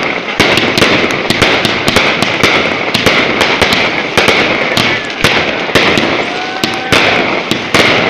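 Fireworks display going off in quick succession: a dense, irregular run of bangs and crackling bursts, several reports a second.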